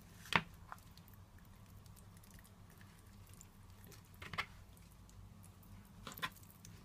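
Faint, soft wet handling sounds as hands press and move whole seasoned tilapia on a plastic tray, with a sharp click less than half a second in.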